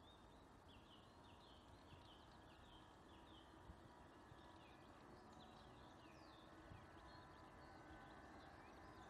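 Near silence with faint bird song: many short, quick falling chirps repeated throughout, over a faint steady outdoor rumble.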